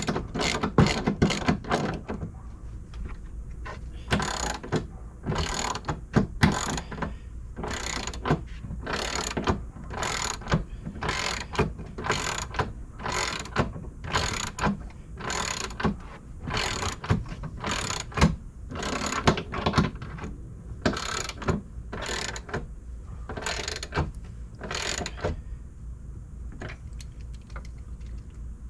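Hand ratchet wrench tightening bolts: a quick run of ratchet clicks on each swing of the handle, a little over one stroke a second, stopping a few seconds before the end.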